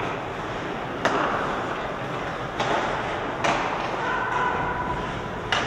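Ice hockey play in an echoing rink: sharp cracks and thuds of sticks, puck and players against the boards, four of them, each ringing on briefly, over a steady wash of skating and arena noise.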